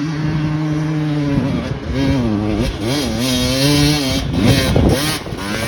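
Dirt bike engine running at a steady pitch, then revving up and down repeatedly from about a second and a half in.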